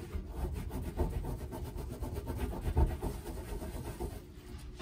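Terry microfiber cloth scrubbed hard back and forth across a black gas stovetop around a burner, a rapid rubbing. The scrubbing is lifting a sticky, stuck-on residue softened by soaking in cleaner.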